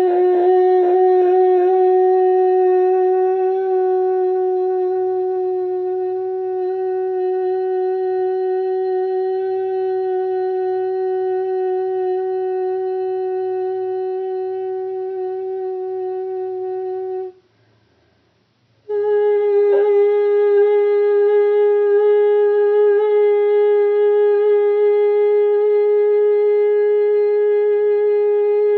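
A voice singing one long, steady tone for about seventeen seconds, breaking off for a breath, then holding a second, slightly higher tone.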